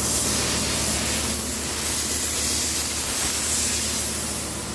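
Compressed air hissing steadily from a blow gun as a lube oil backwash filter element is blown clean. A steady low machinery hum lies beneath.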